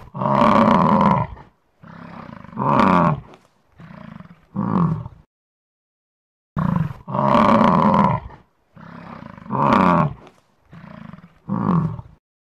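American bison bellowing: one long, deep roar followed by three shorter calls, then the same sequence again after a pause of about a second.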